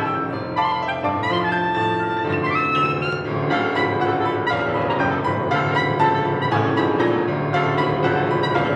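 Clarinet and grand piano playing a contemporary classical duet: held clarinet lines over a busy piano part with many struck notes.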